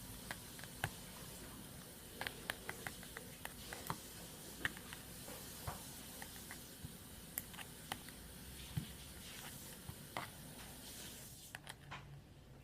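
A spoon poking and stirring slime mixture in a cup: faint, irregular small clicks and taps with soft squelches.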